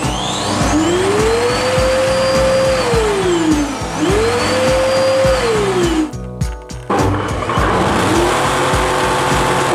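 LG vacuum cleaner motor switched on and off twice: each time it spins up to a high steady whine, holds for a second or two, and winds down. After a short break it runs again at a steady pitch, with background music with a beat underneath.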